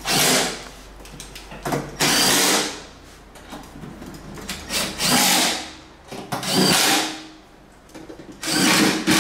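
Cordless power drill-driver running in five short bursts of about half a second each, a few seconds apart, working the fasteners in a scooter's underseat storage compartment.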